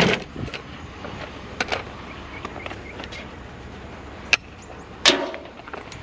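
Scattered knocks and clanks of scrap items such as crutches and an ironing board being handled. A sharp click comes about four seconds in and a louder clatter about a second later.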